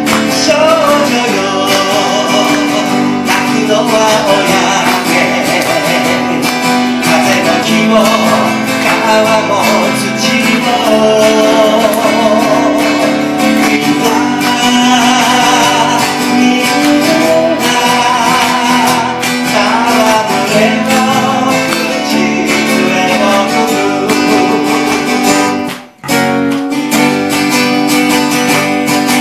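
Live folk band: two steel-string acoustic guitars played with three-finger picking, an electric bass, and men singing. Near the end the sound cuts out for a split second, then carries on.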